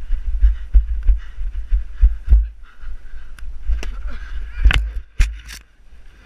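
Wind buffeting the microphone of a body-worn GoPro as its wearer runs, with heavy thuds of footfalls. A few sharp knocks come about three quarters of the way through as the football is caught and the wearer goes down near the turf.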